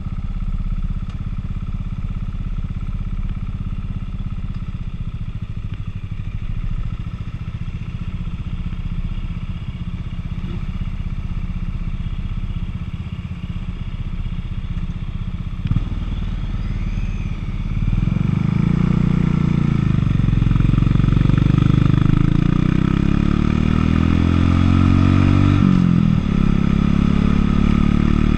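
Buell motorcycle engine idling with a steady low rumble, then pulling away about two-thirds of the way in, running louder as it accelerates. The pitch climbs, drops briefly at a gear change near the end, and climbs again.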